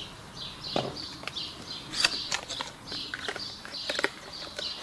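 Small songbirds singing and chirping in short repeated phrases, with scattered clicks and light rustles from cardboard boxes and plastic packaging being handled. The sharpest click comes about two seconds in.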